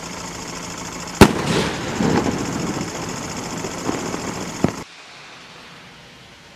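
Supernova 1.3G firework rocket: a steady hiss as it climbs, then one sharp bang about a second in as the shell bursts. A spread of hissing and crackle follows from the stars, with a couple of smaller pops, and the sound cuts off suddenly near the end.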